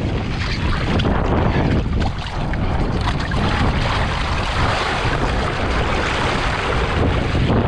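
Wind buffeting the microphone over the rush and splash of water against a windsurf board under sail.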